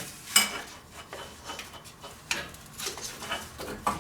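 Scattered metallic clinks and knocks as a small pry bar works against a turbocharger's tightly spring-loaded joint, trying to force it apart.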